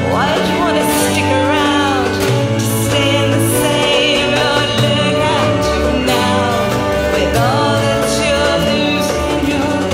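A woman singing long, gliding notes over acoustic guitar and a small orchestra with flute; no words can be made out.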